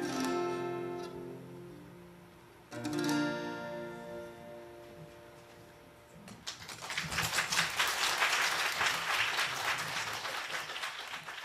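Two acoustic guitars strum the closing chords, which ring out and fade, the last one struck about three seconds in. About six seconds in, audience applause starts and carries on.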